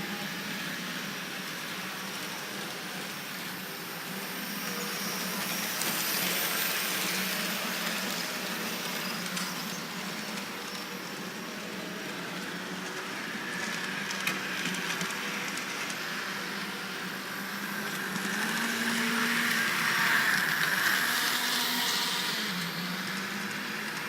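H0-scale model trams running along the layout track, their small electric motors whirring steadily. The sound swells twice, as a tram draws closer, with a few light clicks from the wheels on the track.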